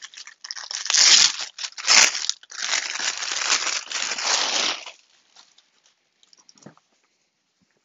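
Plastic packaging being torn open and crinkled by hand, in a run of loud rustling bursts that stop about five seconds in, followed by a few faint rustles.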